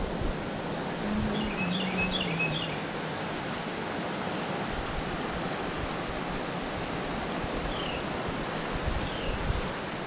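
Steady rush of a creek running high after heavy rain, its current pouring over a shallow riffle. A few faint, brief high chirps sound in the first few seconds.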